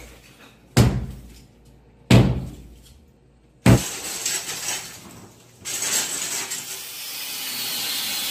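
Three hard hammer blows on a brick wall about a second and a half apart, each followed by a clatter of falling debris, then a steadier rattling noise about halfway through.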